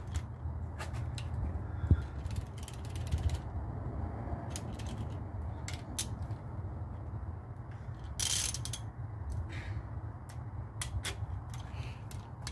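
Socket ratchet wrench clicking in short runs on the connecting-rod cap nuts of an engine block, over a steady low rumble.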